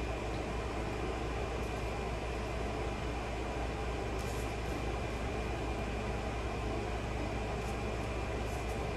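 Steady room noise: a low hum and even hiss with a faint high whine held throughout, and a few faint soft ticks about four seconds in and near the end.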